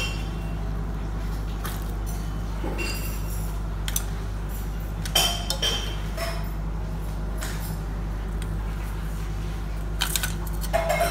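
Scattered light metallic clinks and clicks as a motorcycle's chrome headlight shell and its fittings are handled and taken off, a few sharp ones about four and five seconds in and again near the end, over a steady low hum.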